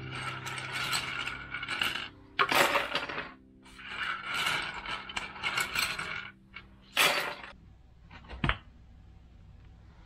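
Loose plastic keycaps clattering against each other and the desk as they are scooped up by hand, in several rattling bursts, with a single sharp click near the end.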